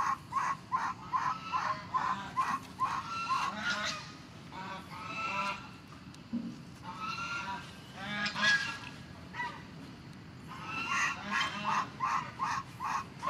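Domestic goose honking: a quick regular run of honks, about two or three a second, for the first few seconds, then more irregular honks, with a lull shortly after the middle before the calling picks up again near the end.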